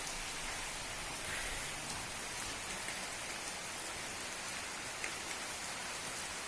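Steady rain falling and pattering on surfaces: an even hiss with scattered drop ticks.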